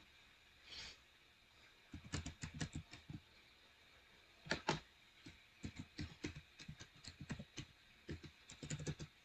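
Faint typing on a computer keyboard, with sharp irregular keystrokes. There is a quick run of keys about two seconds in, a louder pair of clicks around four and a half seconds, then a longer run of typing to the end as a user name and password are entered.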